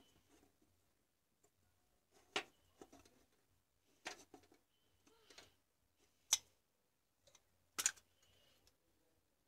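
Small flat screwdriver prying at the seam of a compact fluorescent bulb's plastic base, with faint scraping and several sharp plastic clicks as the snap-fit housing is levered apart.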